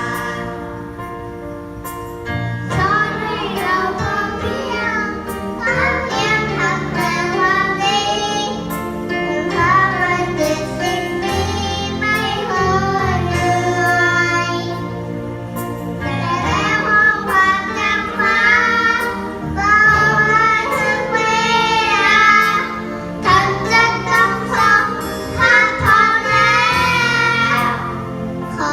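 A young girl singing a Thai song with vibrato over instrumental backing music, heard through a sound system.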